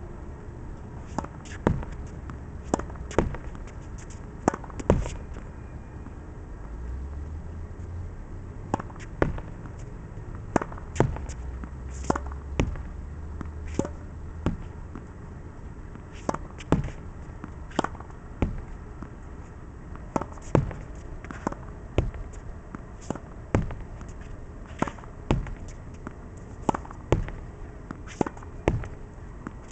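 Tennis rally against a practice backboard: sharp pops of racket on ball, the ball hitting the wall and bouncing on the hard court, in quick irregular runs of about one to three every second. A low rumble sits underneath for several seconds midway.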